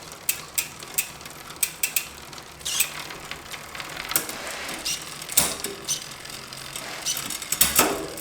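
SRAM GX AXS electronic rear derailleur and chain on a mountain bike being shifted through the cassette: irregular sharp clicks and short chain clatters as the gears change. The derailleur's low-gear limit is not yet set, which the owner says needs adjusting.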